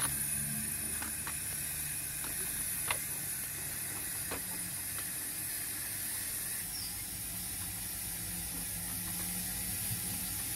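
O gauge model train, a locomotive hauling coal wagons, running along the track: a steady low motor hum with scattered clicks of wheels over rail joints and a steady hiss.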